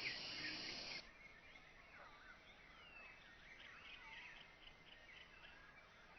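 Forest animal chatter sound effect slowed down: many short chirps and gliding whistled calls, birdlike, over a faint hiss. It drops sharply in level about a second in and carries on more faintly.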